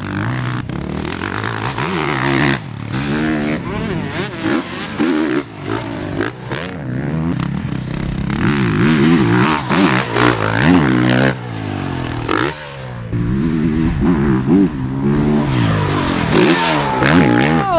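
Motocross bike engines revving hard, their pitch rising and falling over and over as the throttle is opened and closed through the turns and jumps.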